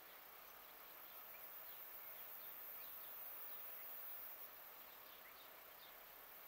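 Faint outdoor background hiss with scattered, faint, short bird chirps.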